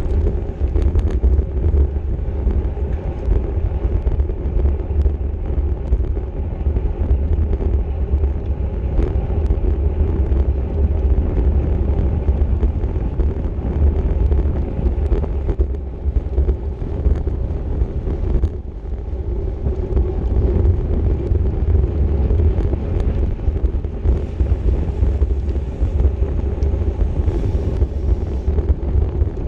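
Wind buffeting the microphone of a camera on a bicycle racing at speed: a loud, steady low rumble that eases briefly about two-thirds of the way through.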